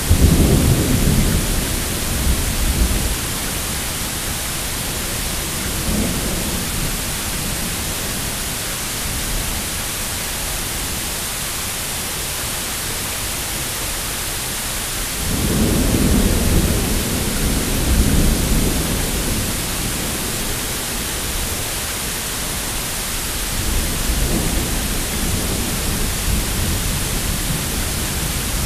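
Steady rain hissing, with low rolls of thunder that come and go: at the start, briefly about six seconds in, longest just past the middle, and again toward the end.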